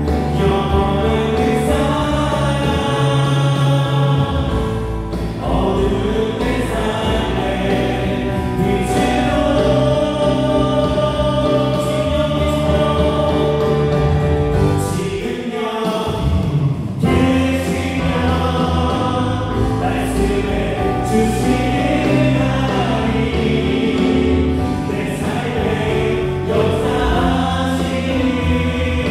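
Live worship band playing a contemporary Christian song, with voices singing over it. The instruments are electric guitar, bass guitar, drums and two keyboards, a Korg Triton and a Yamaha Montage. The bass and drums drop out briefly just past halfway and come back in with a loud hit.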